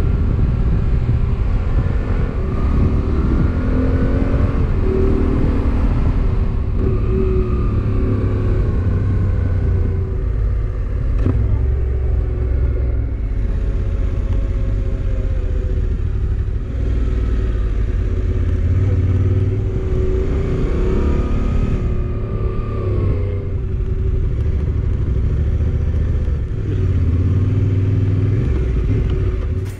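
Motorcycle engine heard from on the bike while riding, the revs rising and falling again and again through gear changes and slowing down, over a steady low rumble.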